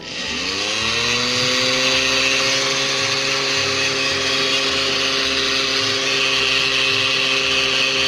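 Glass-jar electric blender switched on, its motor spinning up over the first second and then running steadily with a whine as it churns water laced with alcohol gel and bleach to disinfect the jar.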